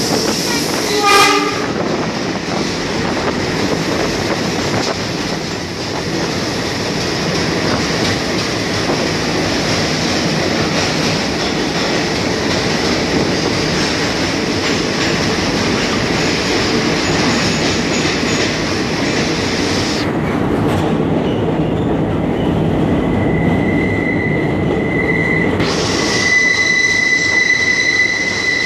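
Passenger train running through a tunnel, with a steady, echoing rumble of wheels on the rails. A short horn blast sounds about a second in. In the last few seconds a steady high-pitched wheel squeal rises above the rumble.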